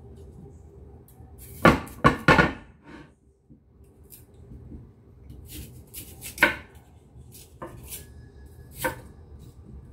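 Cleaver slicing peeled lotus root on a cutting board: sharp knife strikes on the board, three loud ones in quick succession about two seconds in, then a few more spaced out.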